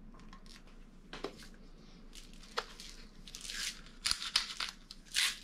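Kitchen handling sounds: scattered light clicks and knocks, with short scraping, rustling sounds about three and a half and five seconds in.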